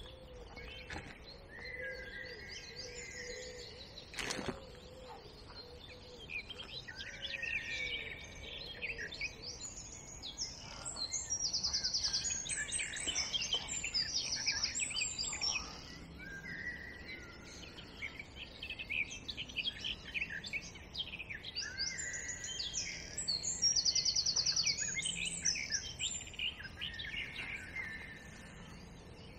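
Songbirds singing: a mix of chirps and warbled phrases, with two louder songs about twelve and twenty-four seconds in, each with a fast, high, evenly repeated trill. A single sharp click about four seconds in.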